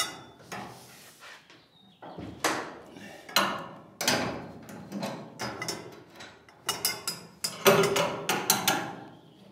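Irregular metallic clanks and knocks from a hinge-pin removal tool and a long perforated steel lever bar being fitted and strained against a seized VW Beetle door hinge pin. A few strikes ring briefly. The pin does not budge.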